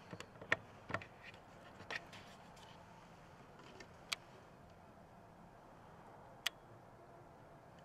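Faint steady hiss with scattered sharp clicks: several close together in the first two seconds, then single clicks at about four seconds and six and a half seconds.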